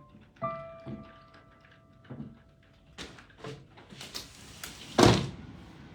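A few soft piano-style keyboard notes held and fading, then several short knocks, with a loud thump about five seconds in.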